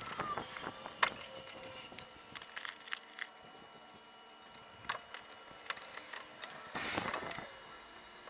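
Scattered light metallic clicks and clinks as gloved hands handle a rear brake caliper and a small bolt, with a brief rustling scrape near the end.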